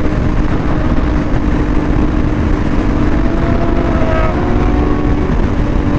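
Motorcycle engine running with a steady note while cruising at about 155 km/h, under heavy wind rumble on the microphone.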